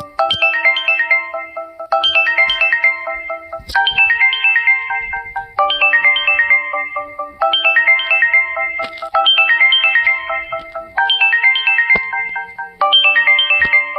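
Electronic phone ringtone: a short melody of quick high notes over a held lower chord, looping about every two seconds.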